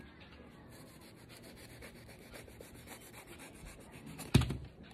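Kitchen knife faintly scraping and slicing through jackfruit flesh as the core is cut out of a section of the fruit, with one sharp knock about four seconds in.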